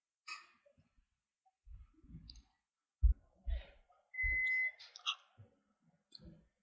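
A metal spoon clicking and scraping against a ceramic bowl during eating, with a few low knocks, the sharpest about halfway through. A brief steady high tone, like a whistle, sounds for about half a second just past the middle.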